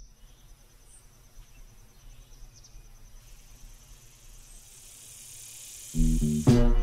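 Faint outdoor ambience with a steady, pulsing high-pitched insect trill, like crickets, slowly swelling; about six seconds in, loud upbeat music starts abruptly.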